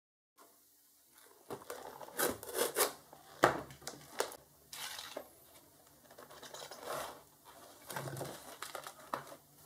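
Hands unwrapping a taped, plastic-wrapped cardboard parcel: irregular crinkling, rustling and tearing, with one sharp snap about three and a half seconds in, the loudest sound. Later the opened box and a plastic blister pack are handled.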